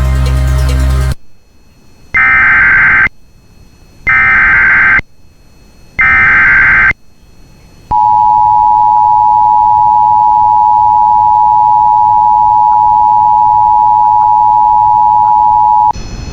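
Emergency Alert System tones opening a new alert. Three one-second bursts of the SAME digital header data, each a rapid warbling chirp, come a second apart, followed by the eight-second two-tone attention signal, a steady dual tone at 853 and 960 Hz. A loud sound cuts off about a second in, before the first header burst.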